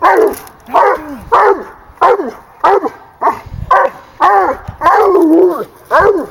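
Young bloodhound treeing a raccoon: loud repeated barks up the tree, about one and a half a second, each falling in pitch, with one longer drawn-out bay about five seconds in.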